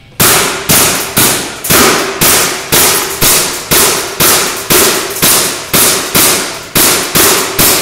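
WE Springfield XDM green-gas blowback airsoft pistol firing about fifteen shots at roughly two a second. Each shot is a sharp, loud crack of the gas and the slide cycling, trailing off briefly before the next.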